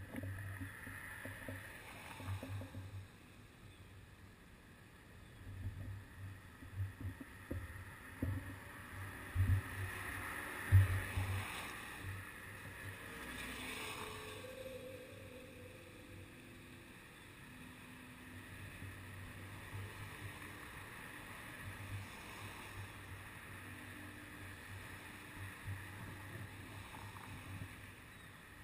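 Road traffic at an intersection: a low, steady rumble of waiting cars, with swells as vehicles move or pass, loudest about ten seconds in.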